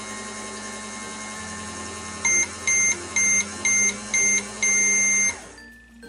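Toy microwave running with a steady electronic hum, then beeping five short times and once longer to signal the end of its cooking cycle.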